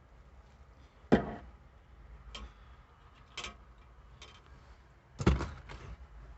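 Scattered clicks and knocks of hand tools and small parts being handled, with two sharper knocks, one about a second in and one about five seconds in.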